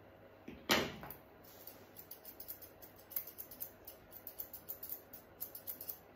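Grooming scissors snipping the hair on a puppy's face: a run of quick, light snips, about four a second, after a short knock about a second in.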